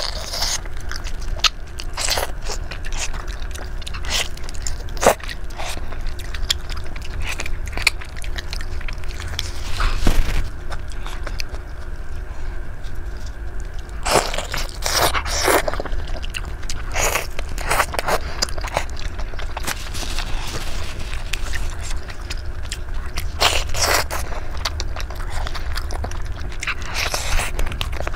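Close-miked eating of sauce-covered chicken: biting, tearing meat with gloved hands, and wet chewing, heard as irregular clicks and crackles with louder clusters now and then, over a steady low hum.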